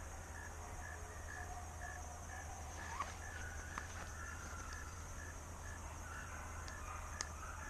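Hounds baying in the distance, drawn-out wavering cries, over a steady high drone of insects with a faint chirp repeating about twice a second.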